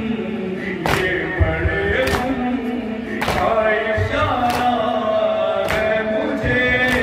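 A man singing a noha (Shia mourning lament) into a microphone, in long held, wavering notes, over sharp slaps about once every 1.2 seconds, six in all: matam, chest-beating that keeps the beat of the lament.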